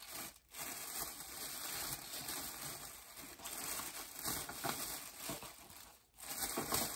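Rustling and crinkling of shopping purchases being handled and sorted through, breaking off briefly twice.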